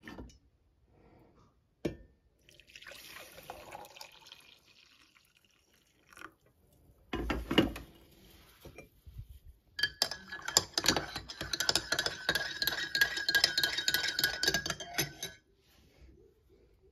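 Coffee poured into a ceramic mug, a knock, then a metal spoon stirring fast in the mug for about five seconds: rapid clinks against the ceramic with a ringing tone, stopping suddenly near the end.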